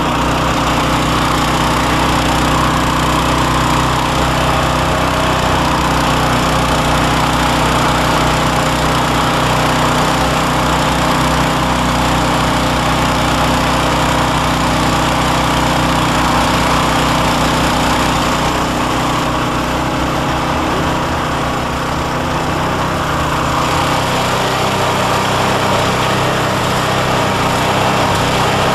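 John Deere snowblower's single-cylinder engine running steadily under load, with the rush of snow being thrown out of the discharge chute.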